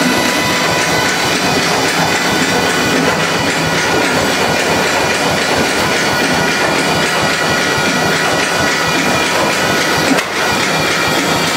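Bruce-Macbeth stationary engine running steadily under way, driving an old generator: a loud, even mechanical clatter with several steady high tones over it.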